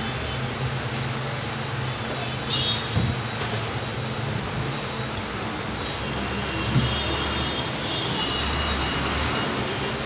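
Street traffic: a steady rumble of passing vehicles, with brief high-pitched squeals or horn tones about two and a half seconds in and again near the end.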